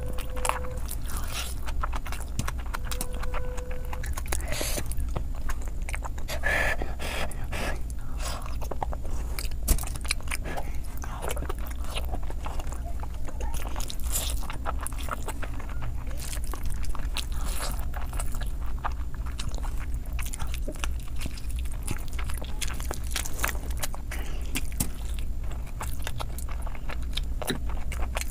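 Close-miked mouth sounds of a person eating biryani rice and curried chicken by hand: wet chewing, biting and lip-smacking with many quick sharp clicks, over a steady low hum.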